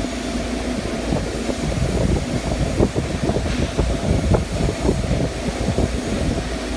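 Spindleless veneer peeling lathe running as it peels a pine log: a steady machine hum, with rapid irregular crackling and knocking from about a second in until about five seconds in.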